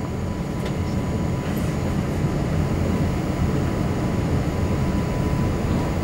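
Inside the cabin of an Airbus A380 on the ground: a steady low rumble of engines and airframe, building slowly at first, with a faint steady high hum.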